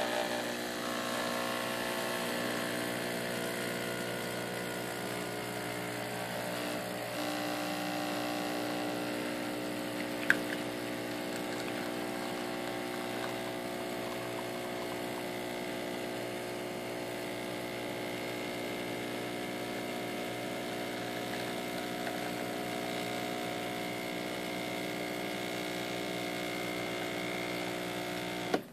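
DeLonghi EC-155 espresso machine's vibratory pump humming steadily as it pushes hot water through the coffee puck during a shot, then cutting off abruptly near the end. A single brief click about ten seconds in.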